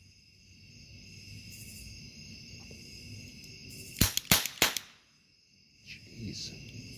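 Toymazing Super Cap Gun firing three caps in quick succession about four seconds in, each a sharp, loud crack roughly a third of a second apart. A steady high-pitched hum runs underneath.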